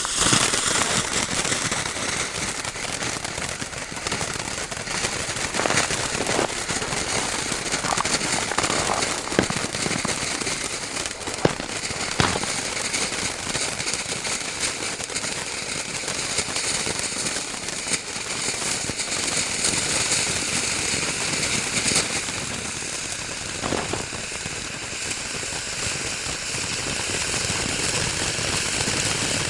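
Ground fountain firework burning: a steady hissing spray of sparks with scattered sharp pops and cracks.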